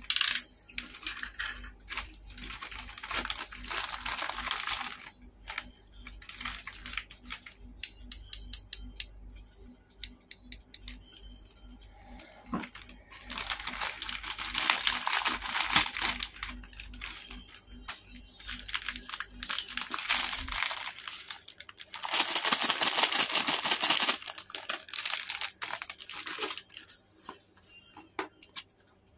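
Thin plastic packaging bags crinkling and being torn open by hand in three long bouts, with scattered small clicks and taps between them.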